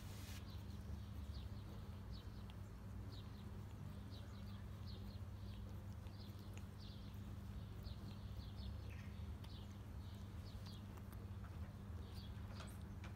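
Mother cat licking her kitten's head: faint, short, wet tongue clicks repeating irregularly, a few a second, over a steady low hum.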